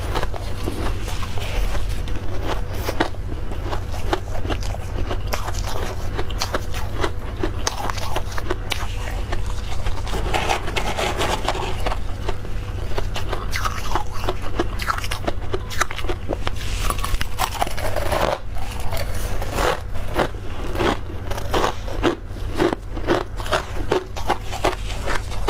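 Soft, powdery freezer frost crunching and scraping close to the microphone as it is bitten and chewed: a dense, irregular run of quick crunches.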